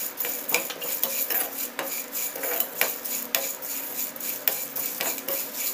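Spatula stirring and scraping whole spices (bay leaf pieces, cinnamon bark, cardamom and black peppercorns) around a nonstick kadai, a quick irregular run of clicks and scrapes. The spices are being dry-roasted without oil for garam masala.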